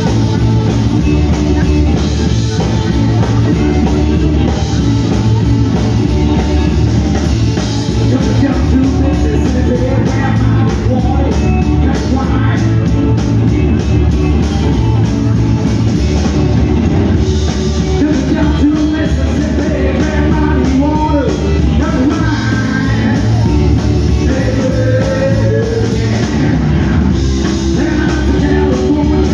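Live rock band playing loud: electric guitars and a drum kit, with singing over them from about ten seconds in.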